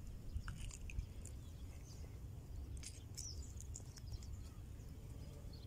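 Faint outdoor ambience: scattered short bird chirps, one with a curling pitch about three seconds in, over a steady low rumble.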